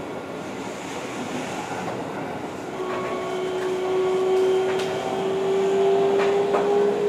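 Keihan 3000 series electric train running, heard from on board: a motor whine sets in about three seconds in and slowly rises in pitch as the train picks up speed, over steady wheel-on-rail noise with a few sharp clicks from rail joints.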